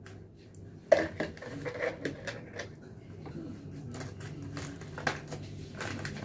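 Plastic snack bag crinkling and small hard biscuits clicking as they are picked out by hand, with a sharp clink about a second in, over a low steady hum.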